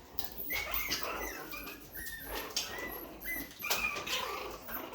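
Long-coat Chihuahua puppies play-fighting, giving repeated short, high-pitched whines and yips.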